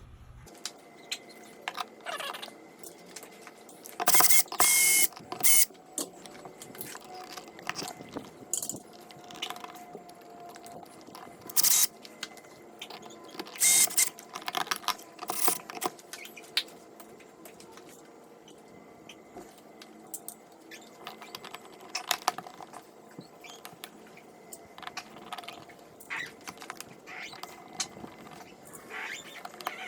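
Hands working at a wall switch box: scattered clicks, scrapes and rustles of small plastic and metal parts, with a few louder bursts near the start and middle.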